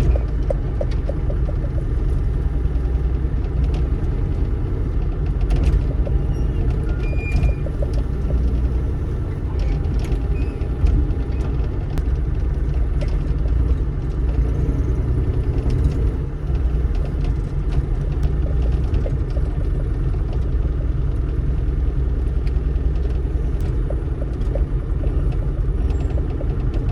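Bobcat E35 mini excavator's diesel engine running steadily under working load, a continuous low rumble, with scattered sharp knocks and clicks from the machine and the material it is working.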